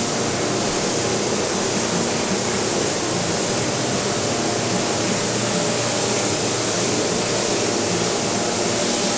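Steady hiss of air in a paint spray booth as a spray gun lays on a coat of paint, with a faint hum from the booth's ventilation underneath.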